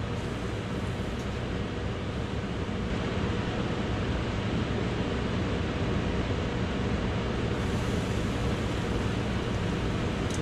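A steady rushing noise with a low hum.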